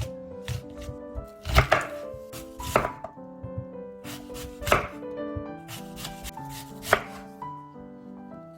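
Kitchen knife chopping food on a cutting board: a handful of separate, irregular strikes a second or more apart, over soft piano background music.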